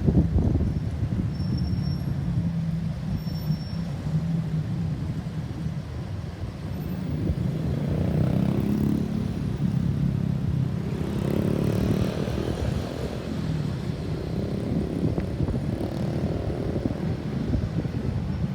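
Road traffic running by, with engine and tyre noise that swells as vehicles pass about eight seconds in and again around eleven to thirteen seconds in.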